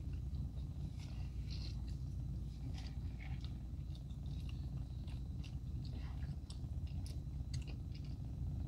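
A person chewing and biting into a burger close to the microphone: irregular short wet mouth clicks and ticks over a steady low hum inside a car.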